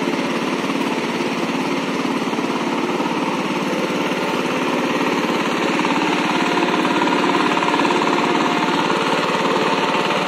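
Single-cylinder diesel engine of a walking power tiller running steadily under load with a rapid chugging pulse as it puddles a flooded paddy field. It gets a little louder in the second half.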